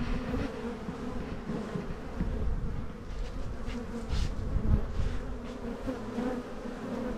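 Many honeybees buzzing as they fly close around the entrance hole of a wooden barrel hive, a continuous hum that swells as individual bees pass near.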